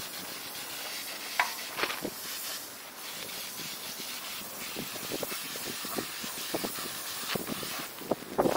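Steady hiss of compressed air and paint from a spray gun, with a few scattered light clicks.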